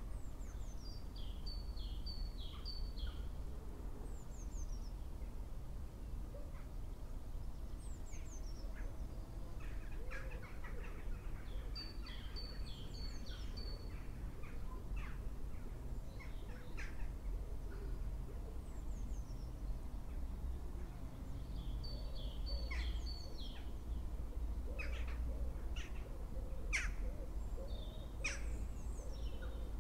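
Songbirds singing: a short high song phrase repeated about every ten seconds, with scattered chirps in between, over a steady low rumble.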